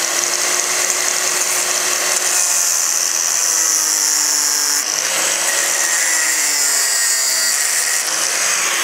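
Small cordless angle grinder running under load, its disc cutting and grinding into the corroded aluminium of a car's air-conditioning condenser to free a seized switch. It gives a loud, steady high whine, and the pitch sags a little at times as the disc bites.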